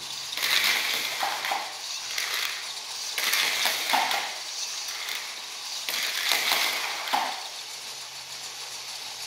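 VEX IQ robot's spinning flywheel shooting plastic discs in three bursts, each a rush of whirring and scraping about a second and a half long, over a steady low motor hum.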